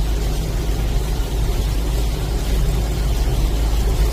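A loud, steady rumble with an even hiss over it, heaviest in the low end.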